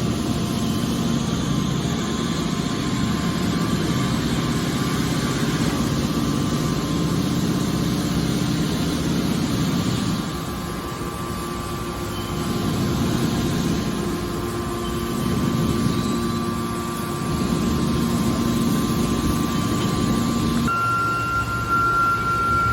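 Hydraulic metal baler running: a steady machine hum from its motor and pump. It eases off for a few seconds partway through, then picks up again. A steady high whine comes in near the end.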